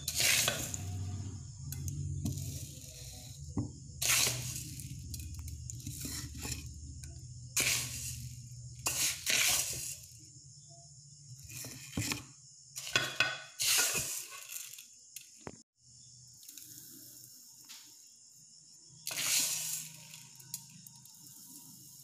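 Dry-roasted rice grains being scooped with a wooden spoon from a steel bowl and poured into a mixer-grinder jar, each pour a short dry rattling rush of grains, repeated a number of times with pauses between.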